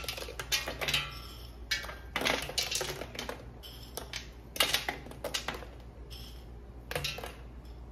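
Peanuts sprinkled by hand from a small plate onto toasted bread in an enamel roasting pan: scattered light clicks and patters, irregular, with brief rustles as fingers pick from the plate.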